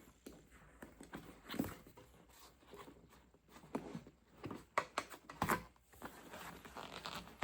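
Car seat upholstery cover being pulled off by hand: irregular rustling and scraping with scattered clicks, and a cluster of louder snaps about five seconds in.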